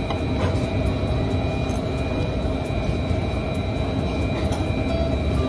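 Steady indoor background rumble with a few constant hum tones, like ventilation or building machinery, and a few faint clicks of a knife and fork on a plate.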